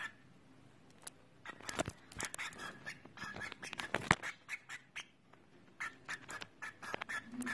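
Small pet bird giving quick, short chirps and squawks in irregular bursts, mixed with sharp little clicks, after a quiet first second.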